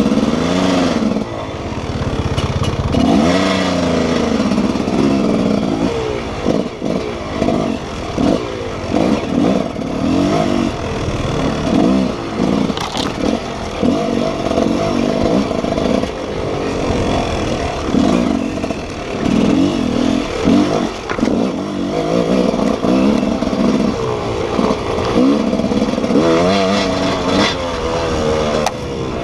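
Enduro dirt bike engine heard from on the bike, revving up and down over and over as the throttle is opened and closed on a rough trail, with a few short knocks in between.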